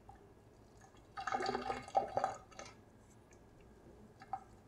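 Just-boiled water poured over a salmon fillet on a cedar plank, splashing into a stainless steel sink. It is loudest for about a second and a half, starting about a second in.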